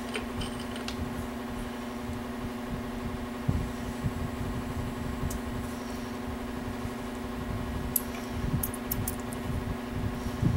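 A steady machine hum runs throughout, with a few light clicks and taps of small metal engine parts being handled as the distributor drive is fitted into the block.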